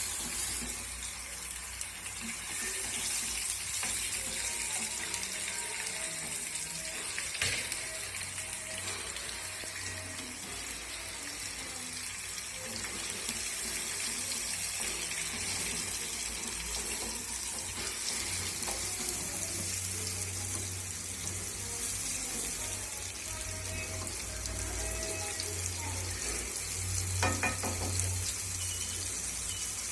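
Onion gravy paste frying in hot oil in a pan: a steady sizzle.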